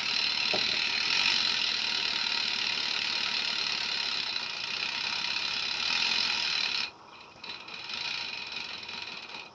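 Roundhouse 'George' 16mm-scale live-steam locomotive running on blocks: a steady hiss of steam with mechanical clatter from the motion. The hiss drops away abruptly about seven seconds in, leaving fainter, uneven sound.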